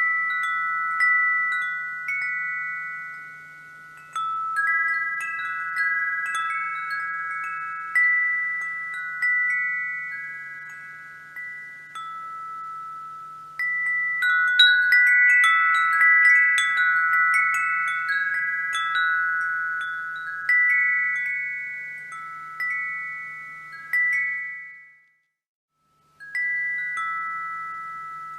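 Wind chimes ringing: a handful of clear, high notes struck at irregular moments, each ringing on and fading, with a flurry of strikes about halfway through. The ringing cuts out to silence for about a second near the end, then starts again.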